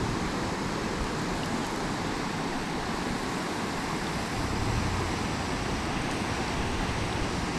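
Steady rush of flowing creek water, an even hiss that does not let up.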